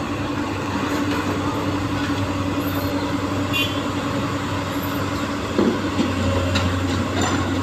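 Heavy diesel engine of an excavator or dump truck running steadily with an even low hum, with a few short knocks about two-thirds of the way through.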